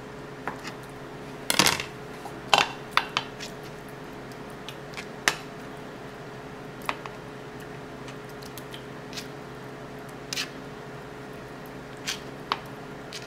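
Knife blade knocking on a cutting board as tofu is cut into cubes, a cluster of sharp knocks in the first few seconds, then a few scattered light clinks as the cubes are put into a ceramic bowl. A steady hum runs underneath.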